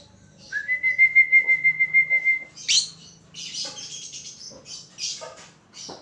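A person whistles one warbling note, held for about two seconds; then a rosy-faced lovebird gives a sharp rising chirp followed by a run of harsh chirps.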